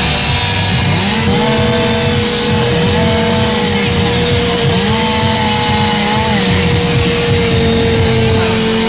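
Chainsaw running hard during a chainsaw-carving performance, its pitch rising and falling every second or two as it bites into the wood and eases off, over a steady tone.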